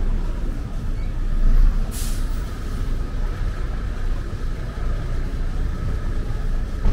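City street traffic: a steady low rumble of cars and a small truck driving past, with one brief sharp hiss about two seconds in.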